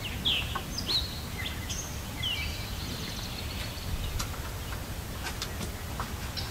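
A bird chirps several short, quick calls that slide in pitch during the first couple of seconds, over a steady low outdoor rumble. A few faint clicks follow later on.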